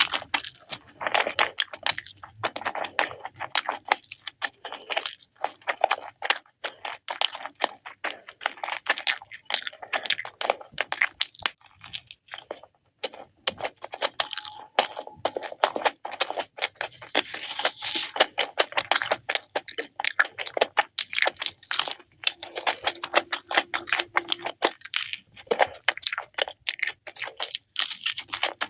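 Close-up chewing and crunching of crispy fried chicken lollipops, a quick irregular run of crackles and bites.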